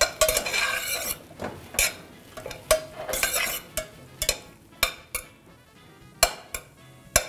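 Metal spoon stirring diced bacon in a stainless steel pot: irregular scrapes and clinks of spoon on the pot as the bacon is turned, just starting to fry.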